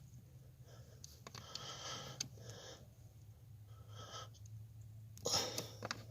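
A person breathing heavily and rhythmically, with a faint wheezy whistle on the breaths and a louder, harsher breath about five seconds in, while small clicks of handling parts sound over a low steady hum.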